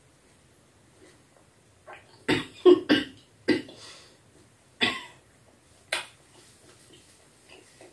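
A woman coughing while eating panipuri: a quick run of four coughs about two to three and a half seconds in, then two single coughs about a second apart.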